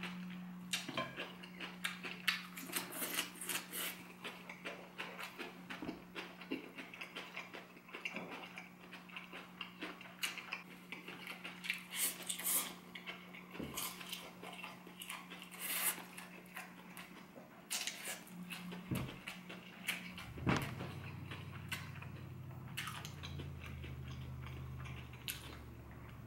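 A person chewing mouthfuls of fried instant noodles, with short wet smacks and light clicks of chopsticks against a plate and a glass bowl. A steady low hum runs underneath and drops lower about twenty seconds in.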